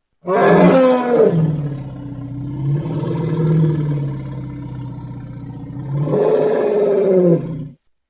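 Sound-effect call of a Deinotherium, a prehistoric elephant relative: one long, deep, pitched animal call that drops in pitch over the first second and then holds low. About six seconds in it swells louder again, then stops abruptly.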